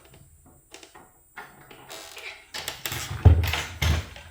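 Handling noise from taking apart an espresso machine: a few small clicks of a screwdriver and parts, then a run of knocks on the housing in the second half, the two loudest about a second apart.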